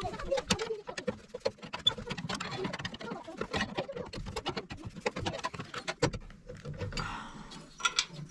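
Rapid, irregular light clicks and rattles of metal furnace parts being handled while opening up the burner and pilot assembly, with a brief scrape about seven seconds in and two sharper clicks just after.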